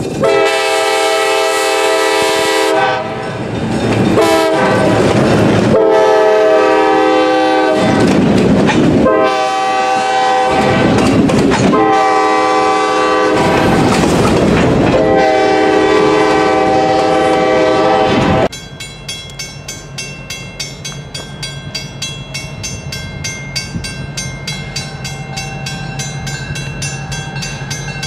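Diesel locomotive horn on an EMD GP10, blown in a series of long blasts with short breaks. It cuts off suddenly about eighteen seconds in. After that comes a quieter fast, even ringing over a low diesel rumble.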